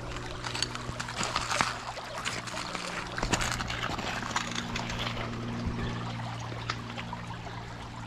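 Shallow creek water trickling and running over stones, with scattered small clicks and knocks.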